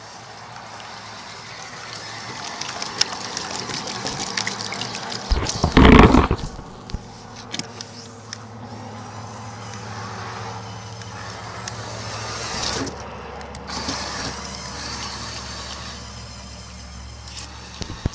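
Water churning and splashing around a Lego Technic RC boat, over a steady low hum, with one loud splash about six seconds in.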